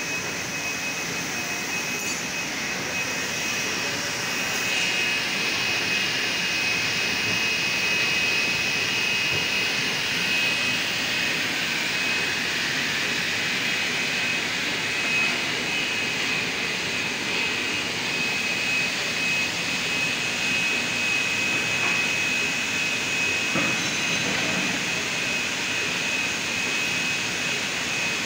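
Drinks bottle-filling line running: conveyors and their gear motors carrying plastic bottles, a steady machine noise with a thin high whine through it.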